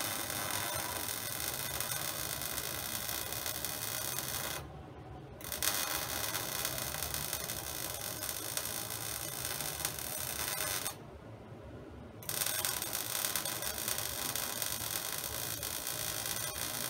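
Wire-feed (MIG) welding arc on a mild-steel plate, a steady crackling hiss. The arc breaks off twice for a second or so, about five seconds in and about eleven seconds in, so the weld goes down in three runs.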